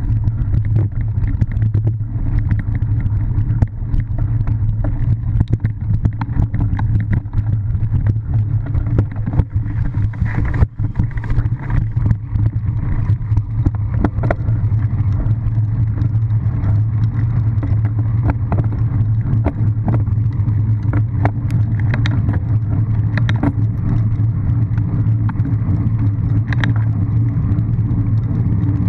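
Cyclocross bike ridden over rough grass and a dirt path, heard through a camera mounted on the bike: a steady low rumble with frequent knocks and rattles from the bumps.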